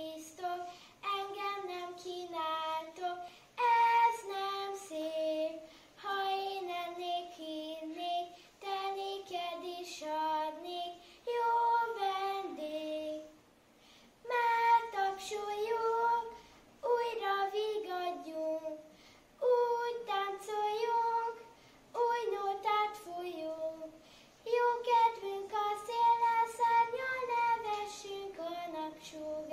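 A young boy singing solo and unaccompanied in Hungarian, a single melody in short phrases with brief breaths between them.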